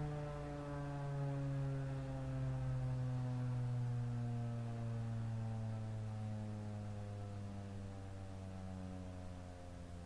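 Federal Signal 2001-130 outdoor warning siren winding down at the end of its full-alert tone. Its pitch slides slowly and steadily lower as it fades.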